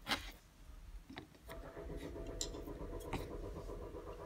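A knife taps sharply on a wooden cutting board while dried apricots are cut, once near the start and again about a second in. From about a second and a half in, a steady mechanical hum with a few level tones sounds underneath.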